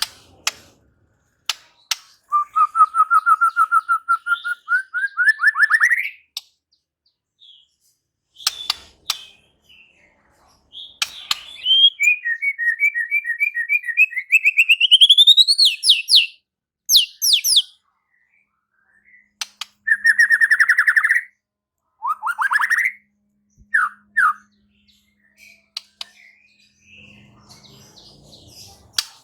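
White-rumped shama singing: long runs of rapid repeated notes that climb steadily in pitch, sharp clicks, and short sweeping phrases, broken by brief pauses.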